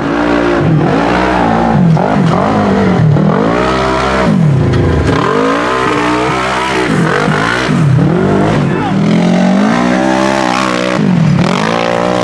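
Side-by-side UTV engine revving hard again and again, its pitch repeatedly dropping and climbing back up.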